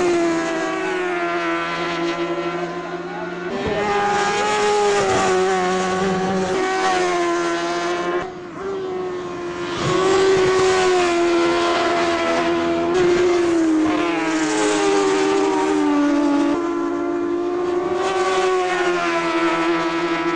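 Superbike racing motorcycles' engines at speed, one bike after another, the engine pitch gliding up and down through the gears and shifting again with each new bike. Loudness dips briefly about eight seconds in.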